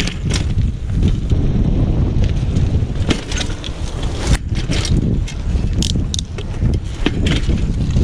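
Wind buffeting the microphone of a camera on a moving bicycle, a steady low rumble, with scattered clicks and knocks from the bike rattling over the paved path.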